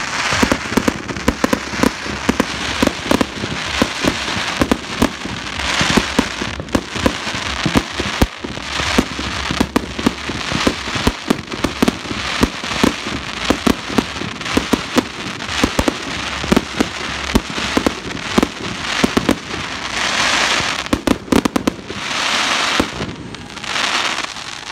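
Daylight fireworks display: a rapid, continuous string of sharp bangs from shells bursting overhead, with stretches of dense crackle about six seconds in and again near the end.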